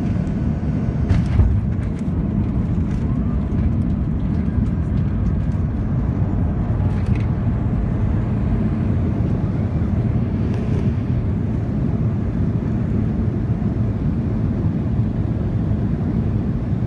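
Steady low rumble of the CFM56 engines and airflow heard inside the cabin of a Boeing 737-300 in flight, with a few faint clicks.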